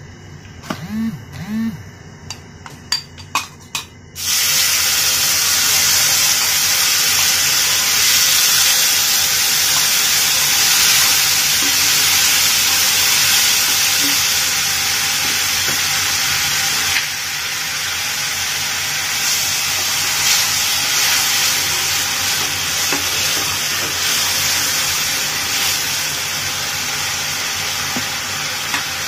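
A few clicks of a spoon against a wok over faint frying. About four seconds in, a loud, steady sizzling hiss starts suddenly as liquid hits the hot oil and spices, and it keeps sizzling and steaming while being stirred. It eases slightly a bit past halfway.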